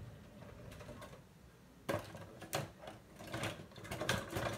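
A kitchen drawer pulled open about two seconds in, then cooking utensils clattering and rattling against each other as hands rummage through it.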